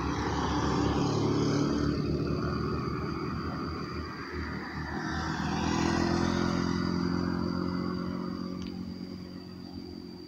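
Road vehicles passing, their engines swelling up and dying away twice: once about a second in and again around the middle, fading out near the end.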